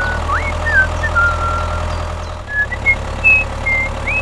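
Tractor engine idling with a steady low rumble. Short, high, whistle-like chirps sound over it every so often.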